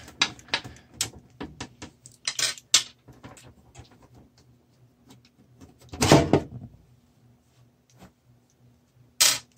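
See-through side panel of a desktop PC case being taken off by hand: scattered clicks and taps as the panel and its fastenings are worked, then a louder clatter and scrape about six seconds in as the panel comes away.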